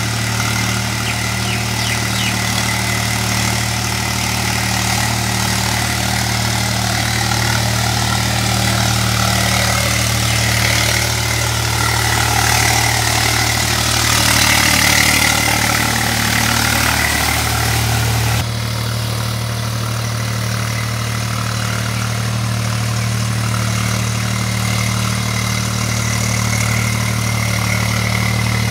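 Swaraj 735 FE tractor's three-cylinder diesel engine running steadily as it works a flooded paddy field on cage wheels, churning water and mud. The sound swells about halfway as the tractor comes close, then drops suddenly a few seconds later.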